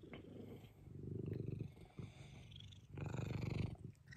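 A domestic cat purring close up, the purr coming in swells with each breath, loudest about three seconds in.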